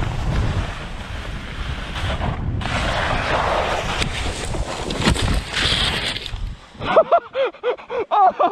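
Wind buffeting an action camera's microphone as a ski bike rider descends fast through snow; it cuts off suddenly about six and a half seconds in, followed by short repeated vocal sounds from the rider.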